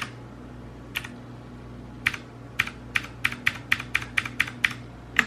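Keys being pressed on a Ducky One 2 Mini 60% mechanical keyboard: a few separate clicks about a second apart, then a quicker run of keystrokes from about halfway through.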